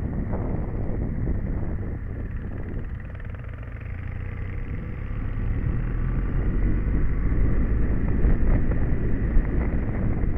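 Royal Enfield single-cylinder motorcycle engine running while pulling uphill. It eases off about three seconds in, then opens up and gets louder toward the end.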